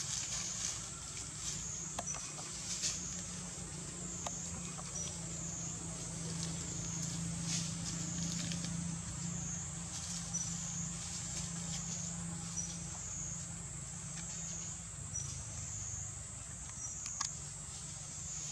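Steady high-pitched insect chorus, typical of cicadas, swelling and dipping about every two seconds over a low steady hum, with a few faint clicks and rustles of dry leaves.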